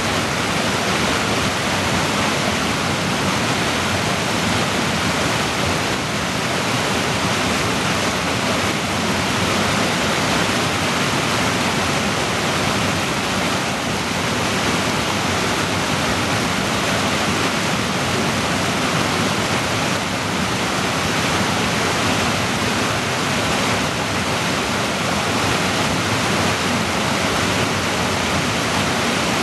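Fast creek rushing over boulders through a narrow rock gorge: a steady, loud, even whitewater rush with no letup.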